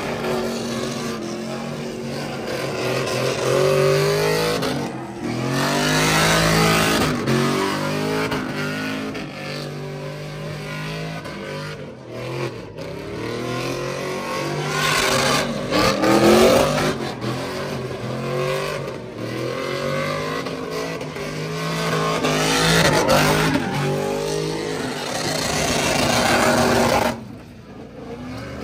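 Pickup truck engine revving again and again, its pitch climbing and falling several times. The sound drops off sharply near the end.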